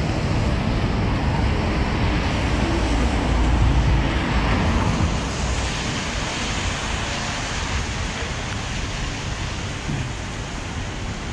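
Wind rushing over the microphone mixed with the hiss and rumble of traffic on wet pavement, swelling louder about three to five seconds in.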